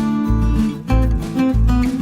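Background music: strummed acoustic guitar over a bass line pulsing about twice a second.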